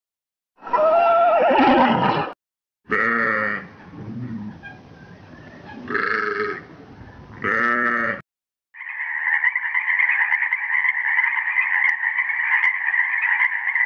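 A horse whinnying, then a sheep bleating several times, then a steady hoarse, hissing sound for about the last five seconds.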